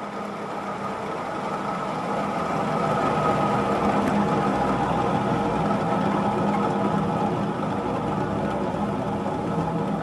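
Moss Caribbean Breeze industrial ceiling fan coasting down after being switched off, its rough bearings giving a steady mechanical hum with a few faint steady tones, easing off slightly toward the end. The owner suspects the bearings are pitted.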